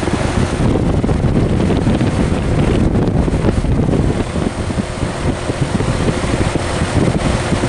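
Outdoor unit of a 2005 Goodman GSH13 2-ton heat pump running: the fan's air rushing over the microphone, with a steady hum underneath.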